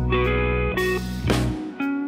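Background music led by guitar, its chords changing every half second or so.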